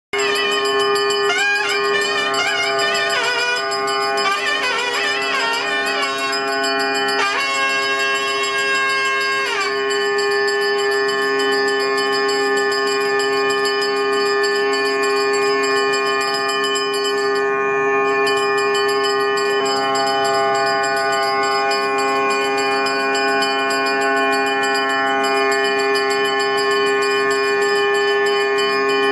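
Ritual music: a bell rings continuously over a steady drone, and for roughly the first ten seconds a wind instrument plays a wavering, bending melody above it.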